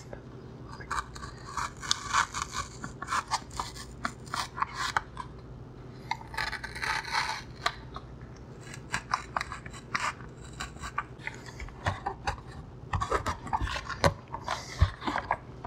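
Utility knife slicing through EPP foam, a run of irregular short scratching strokes as the blade saws back and forth.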